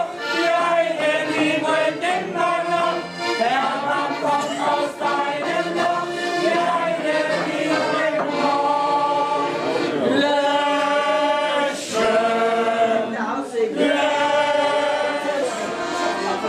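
A roomful of people singing a song together, accompanied by an accordion.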